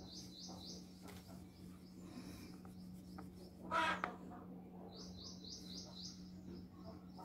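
A small bird chirping in quick runs of short high notes, about six a second, at the start and again from about five seconds in. A steady low hum runs underneath, and there is one short, louder, harsher sound about four seconds in.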